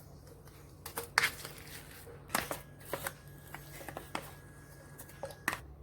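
Scattered light clicks and knocks, about eight in all, of frozen peach pieces and their container being handled as the fruit goes into the blender.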